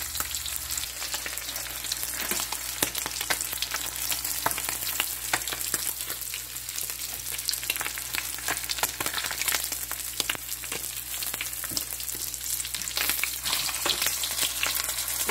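Whole Indian mackerel (hasa-hasa) frying in hot canola oil in a pan: a steady sizzle thick with rapid sharp crackles and pops. The fish are nearly done, fried crisp.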